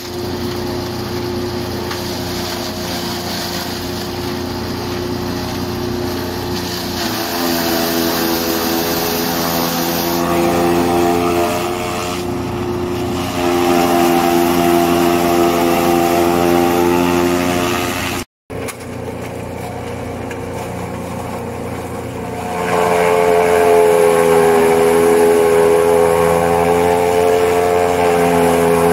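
Electric-motor-driven chaff cutter running, its cutter drum and blower giving a steady, tonal machine drone that grows louder and wavers in pitch as watermelon and green maize stalks are fed through and chopped. The sound cuts out for a moment about two-thirds of the way through.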